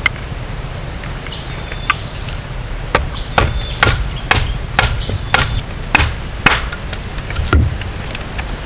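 A run of about ten sharp chopping blows, irregular at roughly two a second, starting about three seconds in, typical of a blade chopping wood.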